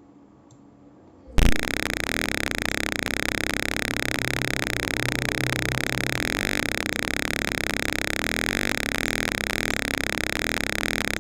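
Simulated piezo buzzer in a Tinkercad Arduino circuit, played through the computer: a steady, unbroken buzz with many overtones that starts suddenly about a second and a half in. It sounds continuously instead of only when something comes near the ultrasonic sensor, because the sketch never set the sensor's trigger pin 6 as an output.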